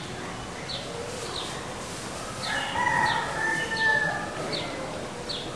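A rooster crowing once, a drawn-out call starting about two and a half seconds in, over a small bird repeating a short, high, falling chirp roughly every second.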